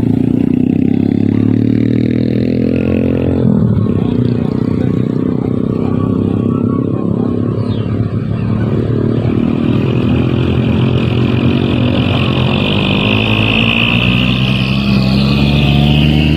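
Heavy diesel truck engine pulling under load up a steep grade. About three and a half seconds in, its pitch breaks and resettles. A high whine joins about ten seconds in and glides down near the end.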